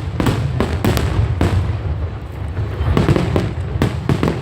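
Fireworks going off: a quick run of sharp bangs in the first second and a half, then scattered bangs, over a constant low rumble.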